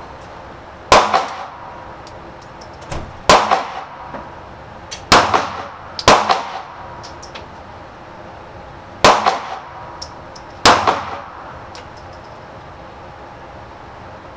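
Six handgun shots at an indoor shooting range, fired at uneven intervals over about ten seconds, each a sharp crack that echoes briefly off the range walls.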